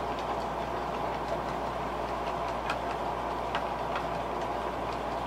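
Small air compressor for an airbrush running steadily with a low hum, with a few faint clicks scattered through.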